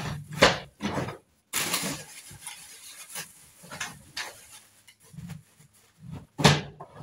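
Irregular knocks, clatters and scrapes of household cleaning things being handled while mop water is prepared, loudest about half a second in and again near the end.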